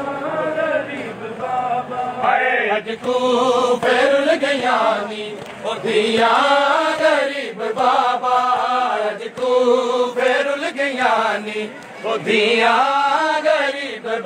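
Men's voices chanting a noha, a Shia mourning lament, in unison: rhythmic sung phrases come about every two seconds, with short breaks between them.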